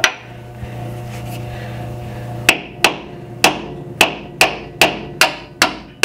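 Hammer blows driving a bolt through a new trailing-arm joint into its chassis mount on a Toyota Land Cruiser FZJ80: sharp metal-on-metal strikes with a short ring, about two to three a second, starting a couple of seconds in. Before the blows begin there is a steady low hum, which cuts off as the hammering starts.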